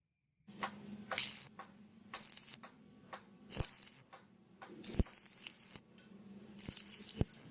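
Metal parts of an antique meat chopper clinking and scraping as they are handled: a string of short scrapes and three sharp knocks, over a faint steady hum.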